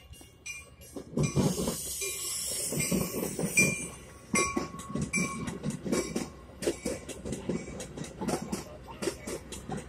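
Metra commuter train's bilevel coaches passing close by, cab car leading, with a rushing hiss as the front goes past. Then a steady run of wheel clicks over the rail joints as the cars roll by.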